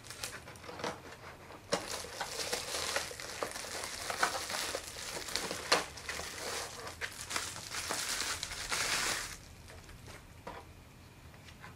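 Clear plastic packaging bag crinkling and rustling as a camcorder is pulled out of it and unwrapped, starting about two seconds in and stopping about nine seconds in.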